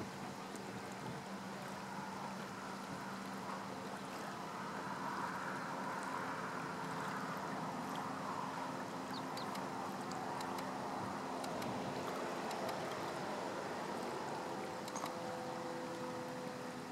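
Shoreline ambience: a wash of noise that swells through the middle, under a steady low engine-like hum, with a few faint clicks.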